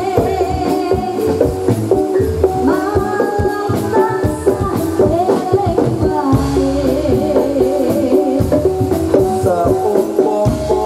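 Javanese gamelan music accompanying a jathilan horse dance, played loud through loudspeakers: ringing metallophone and gong-chime notes over dense hand-drum strokes, with a singer's voice wavering through the middle.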